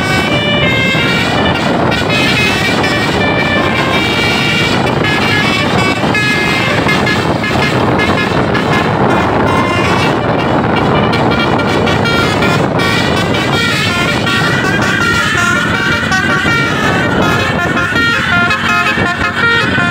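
A bus's telolet basuri multi-tone musical horn plays a melody as a run of short stepped notes, over bus engine and road noise.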